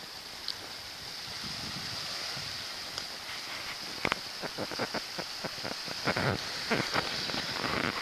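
Small waves washing up on a sandy beach with a steady hiss of surf. From about four seconds in, irregular crunches and scrapes close to the microphone.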